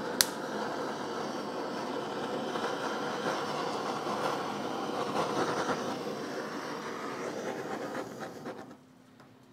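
Handheld butane kitchen torch flame hissing steadily as it chars avocado, cutting off about a second before the end. A single sharp click sounds just after the start.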